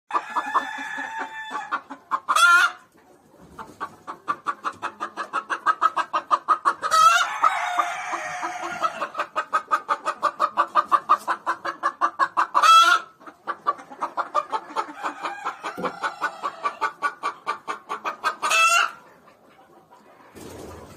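Chickens clucking in long, fast runs of about four to five clucks a second. Four short, loud, sharp calls break in along the way.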